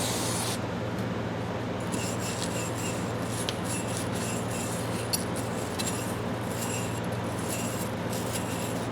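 Intermittent scraping and rubbing on the ratchet's metal parts, with one sharp click about five seconds in, over a steady low hum.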